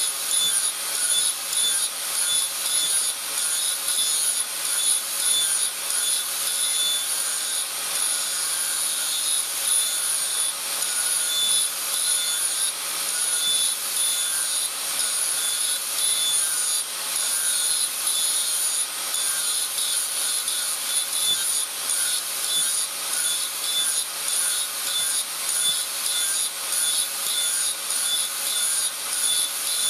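Handheld angle grinder running with its disc ground against a steel axe head held in a vise: a steady high whine over a rough grinding noise that rises and falls a little as the disc is pressed on.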